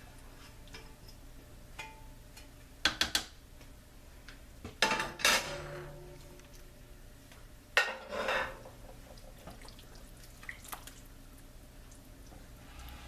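A utensil scraping and clanking against a cooking pot as the last of a sauce and vegetables is scraped out, in three short bursts of clatter about 3, 5 and 8 seconds in.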